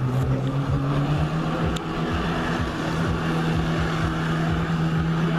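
Personal watercraft (jet ski) engine running steadily at high throttle, its pitch stepping up slightly about a second in and then holding, as it pumps water to a flyboard rider.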